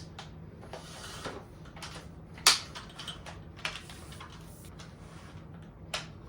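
A few sharp plastic clicks and knocks from the Ryobi string trimmer being handled and adjusted, the loudest about two and a half seconds in, over light rustling and a faint steady hum. The trimmer's motor is not running.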